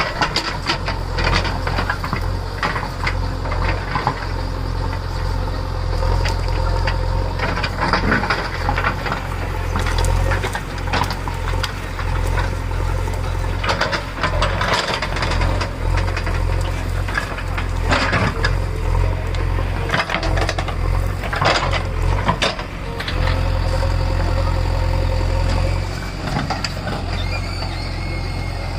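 JCB 3DX backhoe loader's diesel engine running under load, with repeated metallic clanks and rattles from the machine working. The knocks thin out about three-quarters of the way through, leaving a steady engine drone.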